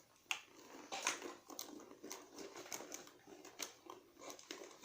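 Faint, irregular clicks and light rustling of small items being handled and rummaged out of a handbag.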